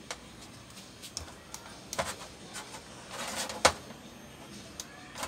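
Scattered clicks and light knocks as test-probe leads and a plastic LED tester box are handled on a TV's sheet-metal backlight panel, with a short rustle and a sharp click about three and a half seconds in.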